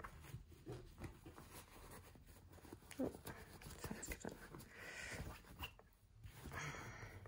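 Faint, intermittent rustling and brushing of a sewn fabric flap being turned right side out by hand, its corners pushed out with a pointed turning tool.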